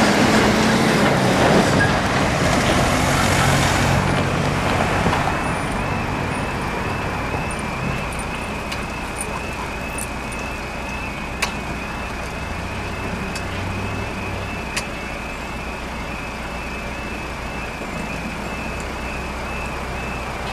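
Level crossing alarm warbling with an even, repeating two-tone pattern as the crossing closes and the barriers lower. Over the first few seconds a skip lorry's diesel engine passes loudly across the crossing.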